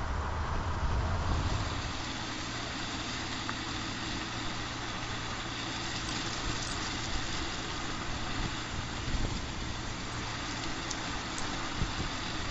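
Volkswagen Taigo small SUV driving along a road: steady engine and tyre noise, with a deeper rumble for the first second or so.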